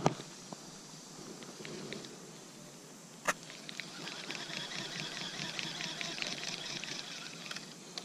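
Baitcasting reel and fishing line being handled: a sharp click about three seconds in, then a fast, fine ticking for a few seconds in the second half.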